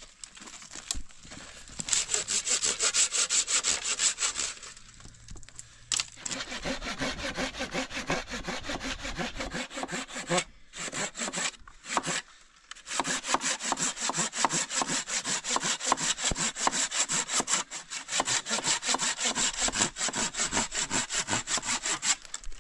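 Handsaw cutting through a wooden tree branch in quick back-and-forth strokes, stopping briefly twice near the middle.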